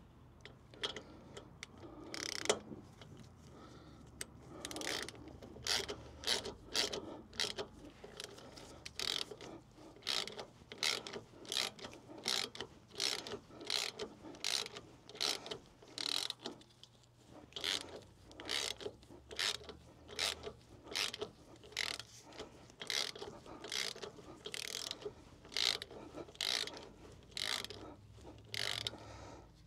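Hand ratchet wrench clicking in short repeated bursts, about two strokes a second, as a bolt is run in and tightened.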